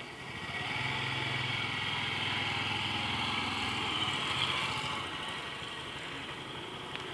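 Small mini motorcycle's engine running at low speed as it rides past, growing louder about a second in and fading after about five seconds as it moves away.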